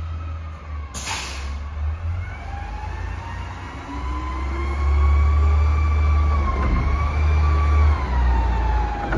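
Front-loader garbage truck's diesel engine running as it approaches, getting louder about halfway through. A whine rises in pitch and holds over the engine, and a short hiss of air comes about a second in.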